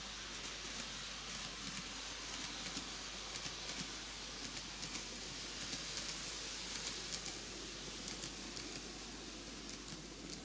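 TOMIX N-gauge Kintetsu 80000 series Hinotori model train running around the track, heard as a faint rolling rattle with scattered small clicks over a steady hiss.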